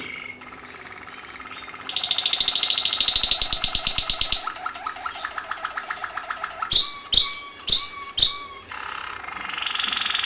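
Domestic canary singing: a fast, high trill, then a lower rolling trill, four sharp separate notes, and another high trill near the end.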